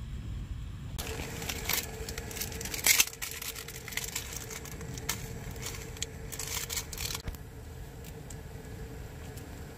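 Instant ramen seasoning sachets torn open, crinkled and shaken out over a pot of boiling water: a string of sharp crackly rustles for about six seconds, loudest about three seconds in. A steady low rumble runs underneath.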